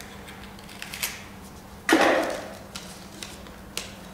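Small plastic clicks and paper rustling as a draw ball is twisted open and its paper slip pulled out and unrolled, with one louder crackle about two seconds in, over a faint steady hum.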